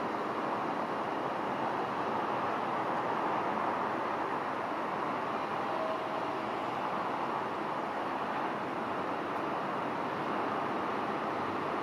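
Steady hum of distant road traffic, an even wash of noise with no single vehicle standing out.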